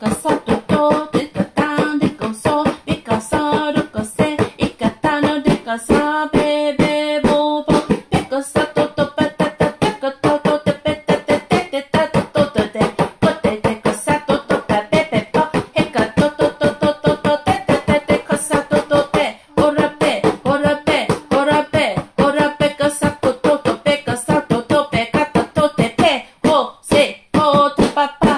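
A voice praying in tongues (glossolalia), reeling off short syllables in a fast, even rhythm of about six a second, over background music.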